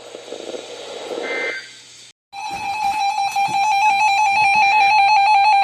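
A short burst of Emergency Alert System data noise, then, after a brief break about two seconds in, the steady two-tone EAS attention signal that opens a severe thunderstorm warning. It is loud and cuts off abruptly near the end.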